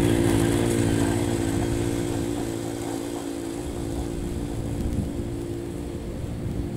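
Ryan Lawnaire core aerator's Honda engine running steadily as the walk-behind machine pulls away, its sound slowly fading.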